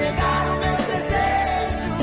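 Background pop music with a sung vocal line over a steady beat.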